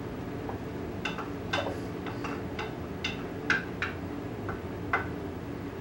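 A metal spoon clinking against a baby-food bowl, about ten light, irregularly spaced clinks over a few seconds, over a steady low hum.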